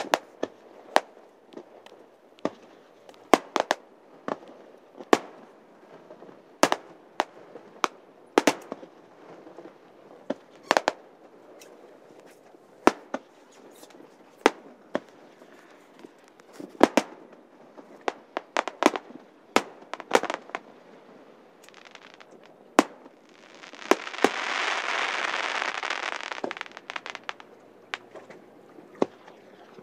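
Fireworks display: aerial shells bursting in a long run of sharp bangs at irregular intervals, some trailing off in a short echo. About two-thirds of the way through, a steady hissing rush of noise lasts a few seconds.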